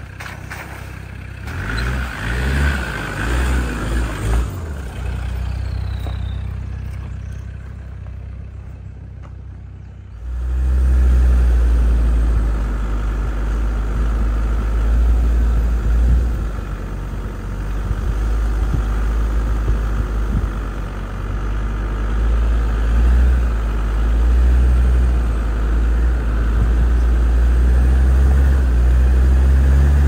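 Land Rover Discovery 2 engine as the vehicle creeps through a shallow stream crossing on a forest track, its pitch shifting as it is driven. About ten seconds in the sound jumps to a much louder steady low rumble with scattered small ticks: the vehicle driving along a rough dirt track, heard from on board.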